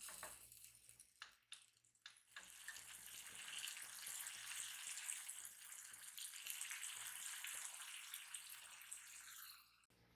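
Water running from a kitchen tap: a steady hiss starting about two seconds in and cutting off abruptly near the end, after a few soft clicks and squishes.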